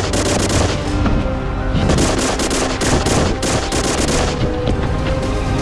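Bursts of rapid, machine-gun-style gunfire over background music. The shots stop about four and a half seconds in, leaving the music.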